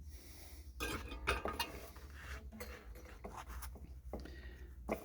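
Light clicks and clinks of small electronic parts and hand tools being handled on a workbench during kit assembly, a quick cluster about a second in, then scattered single clicks.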